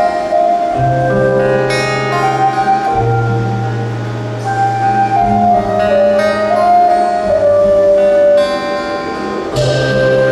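Korean traditional-fusion ensemble music played live: a flute-like melody that slides between notes over held low bass notes, with plucked-string notes and a sharp accent near the end.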